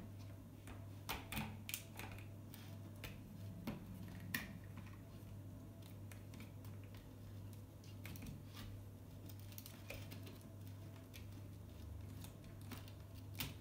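Plastic clicks and light handling as the sliding plastic end holders of an LED retrofit aquarium tube are moved and set to length: a cluster of sharp clicks in the first few seconds and another near the end, over a steady low hum.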